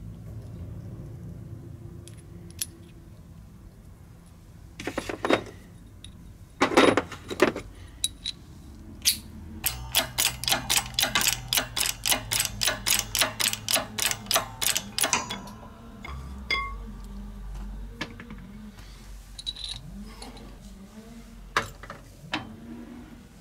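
Hammer blows on a steel bearing driver seating a bearing cup in a moped's rear wheel hub: two louder knocks, then a steady run of about twenty light metallic taps, about four a second, that stops suddenly.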